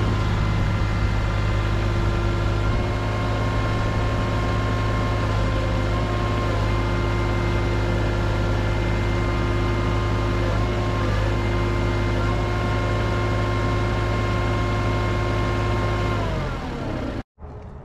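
Kubota KX91-3 mini excavator's three-cylinder diesel engine running steadily while the raised tracks are driven round on the hydraulic travel motors to bring the track seam into position. Near the end the pitch sags briefly before the sound cuts off.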